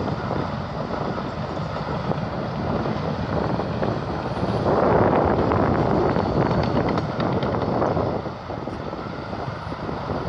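Caterpillar D6T LGP bulldozer's diesel engine working, growing louder for a few seconds about halfway through, then easing back.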